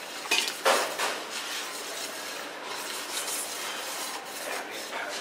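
A metal utensil stirring and scraping around a stainless steel bowl of runny flour-and-water batter, with two sharp clanks against the bowl early on.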